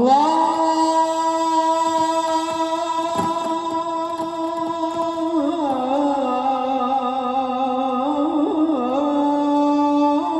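A man's voice chanting the sela, the Islamic chanted blessing on the Prophet, amplified through loudspeakers. He holds one long note for about five seconds, then winds up and down in ornaments before settling on a held note again near the end.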